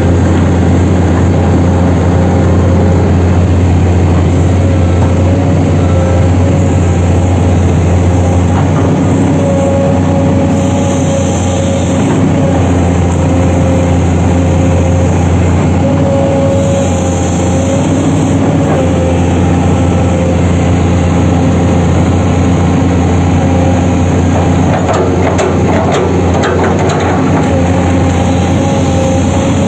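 Diesel engine of heavy machinery running steadily at an even, unchanging speed, with a strong low hum.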